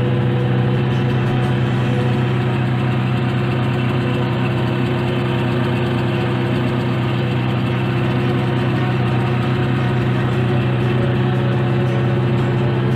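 Motorboat engine running steadily at an even, unchanging pitch.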